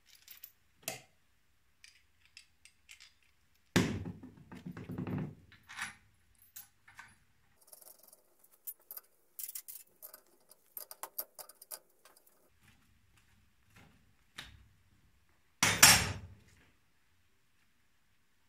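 Metal clinks and knocks of tools and engine parts being handled on a cylinder head during camshaft fitting: a loud clank about four seconds in and another near the end, with scattered light clicks and clinks between.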